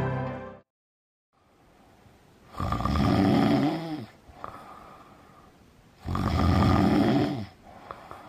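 A person snoring: two long snores about three and a half seconds apart, each trailing off into a quieter breath.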